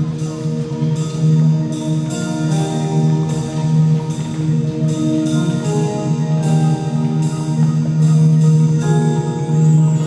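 High school marching band music: a slow passage of ringing mallet-percussion notes, struck about twice a second over a sustained low note.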